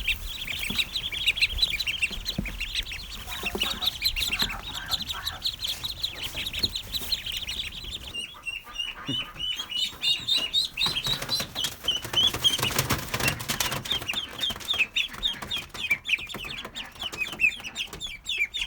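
A brood of Welsh Harlequin and Ancona ducklings peeping nonstop, many short, high, falling peeps overlapping, with rustling and light clicks among them.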